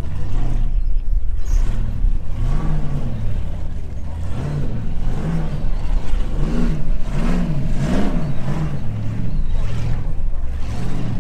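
A vehicle engine revving up and down over and over in short throttle blips, each a quick rise and fall in pitch, coming fastest through the middle.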